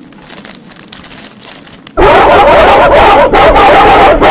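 A faint crackle, then about two seconds in a sudden, extremely loud chorus of dogs howling and screaming, blown out and distorted at full volume: the screaming shiba dogs meme sound.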